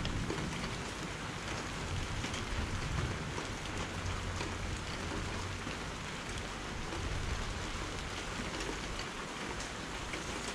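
Steady rain falling, a dense even hiss, with a low uneven rumble underneath.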